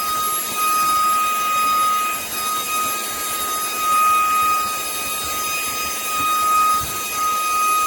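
Dreame H12S wet-and-dry cordless vacuum running: a steady high motor whine over a rush of air.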